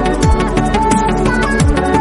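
Electronic music with a fast, steady beat, held synth notes and deep bass sweeps that fall in pitch about every second and a half.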